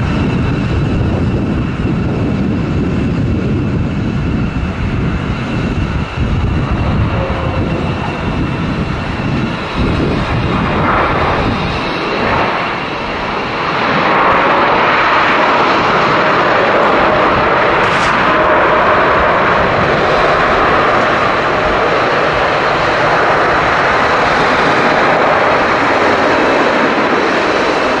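Boeing 777 airliner landing, with its jet engines whining steadily through touchdown. About halfway through, the sound steps up into a louder, steady roar as the jet slows on the runway with spoilers raised and reverse thrust applied.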